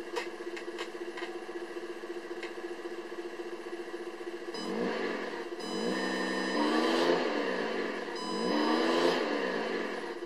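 Tamiya MFC-02 sound unit playing its simulated truck engine through a small speaker: a steady idle for about four and a half seconds, then two revs that rise and fall in pitch.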